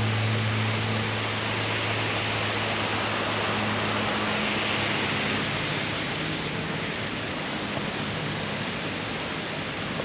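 Steady hiss of light rain falling on pond water and trees. A low steady hum sits underneath and fades out about halfway through.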